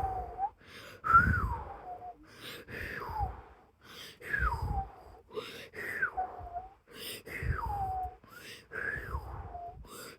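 A child's voice imitating the wind of a tornado: a string of falling 'whooo' glides, about one every one and a half seconds, with breaths between them.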